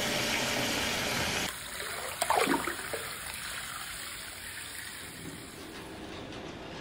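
Water from a bathtub tap pouring into a filling tub, a steady rushing gush that drops to a quieter hiss about a second and a half in. About two seconds in there is a brief, louder splashy burst.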